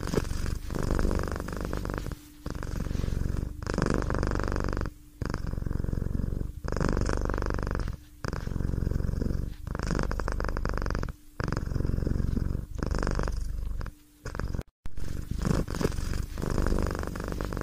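A cat purring close to the microphone, a steady rhythmic purr that swells and dips with each breath in and out, about every one and a half seconds.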